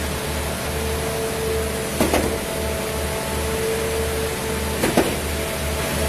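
Diesel concrete pump running: a steady engine and hydraulic drone with a pulsing low rumble and an on-and-off hum, and a sharp clunk about every three seconds, twice here, as the pumping cylinders change stroke.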